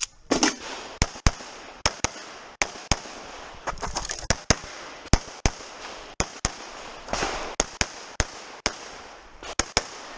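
Semi-automatic pistol fired rapidly in a USPSA stage run, sharp shots mostly in quick pairs with short pauses between strings, each followed by a brief ring-out.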